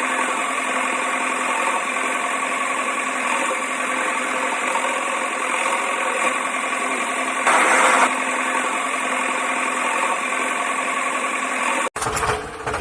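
Toy vehicle running with a steady engine-like hum that has no deep bass, with a brief louder surge about three-fifths of the way through. It cuts off abruptly near the end.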